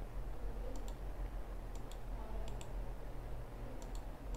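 Light clicks at a computer, coming in close pairs about once a second, over a faint low steady hum.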